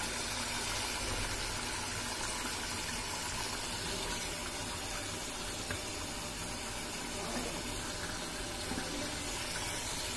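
Steady, even hiss from a pot of tomato-onion masala gravy cooking over a gas stove burner.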